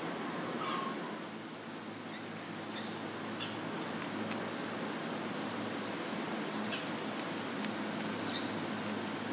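Outdoor summer ambience with a small bird chirping: a run of short, high chirps about twice a second, starting about two seconds in, over a steady low hum.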